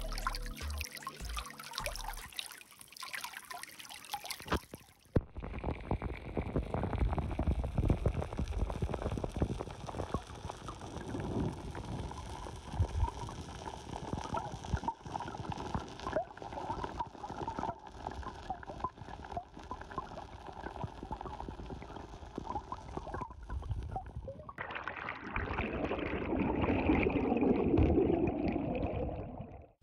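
Shallow stream water flowing and splashing over rocks. About five seconds in, the sound turns muffled and underwater, with the current rumbling and gurgling and many small ticks. Near the end it gives way to a denser, louder bubbling.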